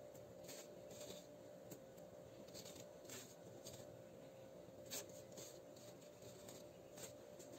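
Near silence: a few faint, scattered light ticks and scrapes as fingers work wet soil in a small aluminium saucepan, over a faint steady hum.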